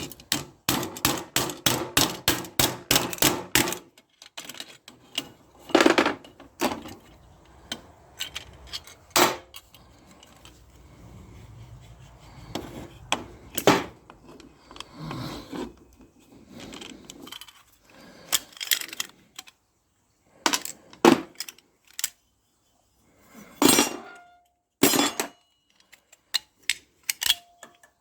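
Pieces of scrap metal clinking and knocking as they are handled and dropped: a quick run of taps over the first few seconds, then scattered single knocks, some ringing briefly.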